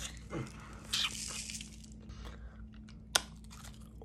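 Teeth biting into a hard candy-coated apple: a loud crunch about a second in, quieter crunching after it, and one sharp snap just after three seconds.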